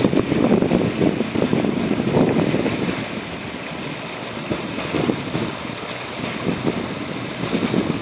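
Wind buffeting the microphone at the seashore, with the wash of the sea behind it; the gusts ease about three seconds in and pick up again near the end.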